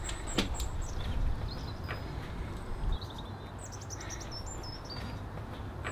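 Small birds chirping and trilling in short high phrases over a steady outdoor background noise, with a couple of faint clicks.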